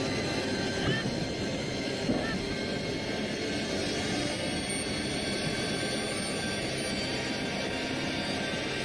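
Film sound design: a steady, dense rumbling drone with faint sustained high tones over it, scored under a space station breaking apart in orbit.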